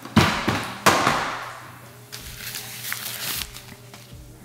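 Unboxing handling noise: two sharp knocks a little over half a second apart near the start, then a few lighter clicks and rustles as the camera box and its packaging are handled.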